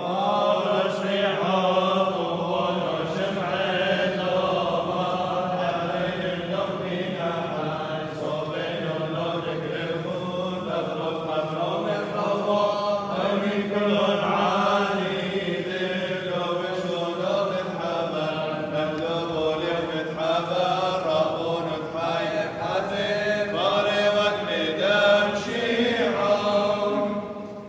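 Orthodox funeral chant: a sung liturgical melody with a steady low tone held beneath it.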